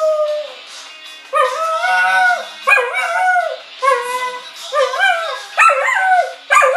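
Dog howling along to music from a phone speaker: a string of short, wavering howls that rise and fall in pitch, about one a second, starting after a brief lull.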